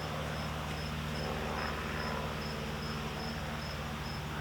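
Cricket chirping in an even pulse, about two or three short high chirps a second, over a steady low hum.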